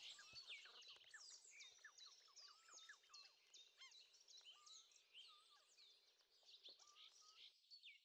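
Faint chorus of small birds, many short chirps and whistles overlapping.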